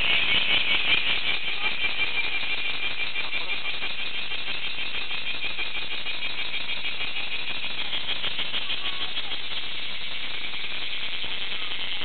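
Cicada song: a continuous, rapidly pulsing high buzz that holds steady throughout.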